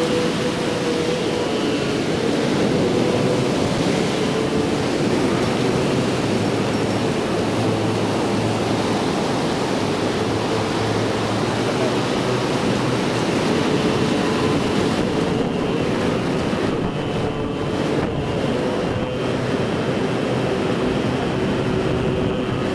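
Ocean surf breaking and washing up the beach, a steady rushing noise, with wind on the microphone.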